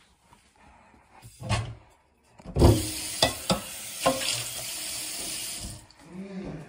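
Kitchen tap running for about three seconds, switching on and off sharply, with a couple of knocks while it runs.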